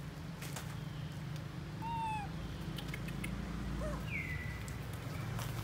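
Baby macaque giving a few short, high crying calls: one about two seconds in, then two close together near four seconds, the last sliding downward in pitch. The calls are a young monkey's distress cries at being left alone, with a few light taps.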